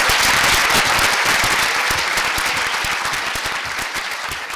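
Audience applauding with dense clapping, which slowly thins and fades over the last couple of seconds.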